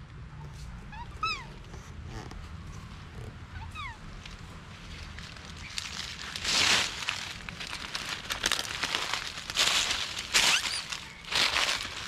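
Dry fallen leaves rustling and crunching as a baby monkey rummages through leaf litter, in several loud bursts in the second half. About a second in, and again near four seconds, come a few short high chirping calls that fall in pitch.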